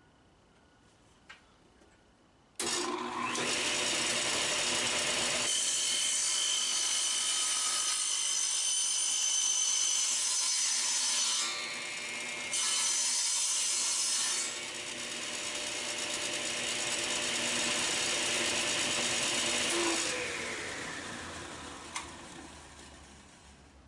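Table saw switched on about two and a half seconds in, running steadily while its blade cuts a kerf in a wooden board. Near the end it is switched off and winds down with a falling whine.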